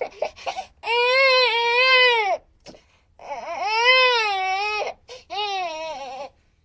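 Infant crying and fussing: a few short whimpers, then three long wailing cries, each rising and falling in pitch, separated by brief catches of breath.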